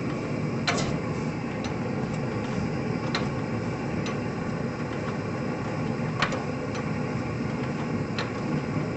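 Kelly and Lewis H1 hot bulb two-stroke engine running, a steady low chugging rumble with sharp clicks at irregular intervals of a second or two.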